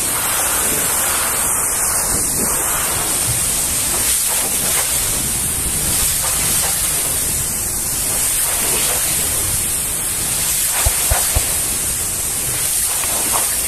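Pressure-washer lance spraying a jet of water against a trailer's fabric curtain side, rinsing off foam: a steady rushing spray. A few short low thumps come about eleven seconds in.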